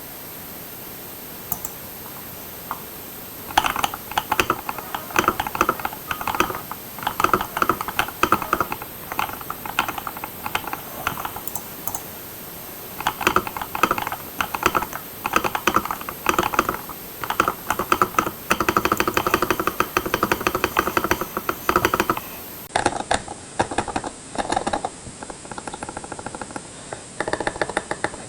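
Typing on a keyboard fitted with new keycaps: fast bursts of keystroke clicks that start a few seconds in, with a short pause midway. About two-thirds of the way through the recording changes and the typing carries on a little quieter.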